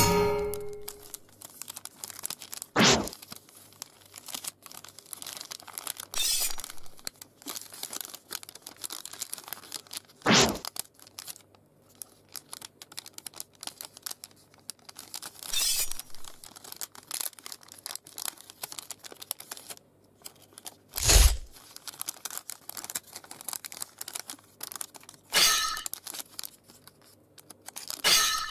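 Sheet of origami paper crinkling and rustling as it is creased and folded. Over it, a dubbed-in samurai-sword swoosh sound effect cuts in every few seconds, about seven times, the loudest about 21 seconds in.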